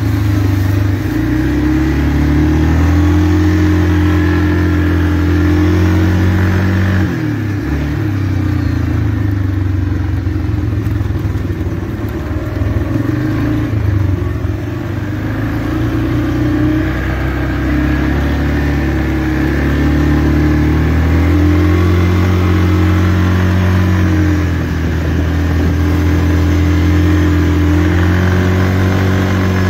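2004 Yamaha Kodiak 450 ATV's single-cylinder four-stroke engine running under way, its pitch rising and falling as the throttle is worked, with a brief drop about seven seconds in.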